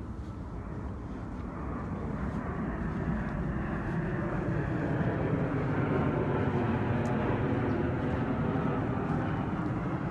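Airplane flying overhead: a steady rumble that swells to its loudest midway, then eases slightly near the end.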